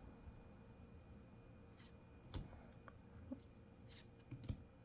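Near silence with a few faint, short clicks from trading cards being handled.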